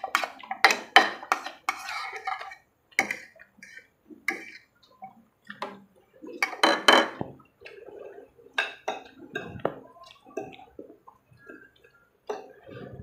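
Eating spaghetti up close: irregular wet clicks and smacks of chewing and slurping, mixed with clinks of cutlery against a plate.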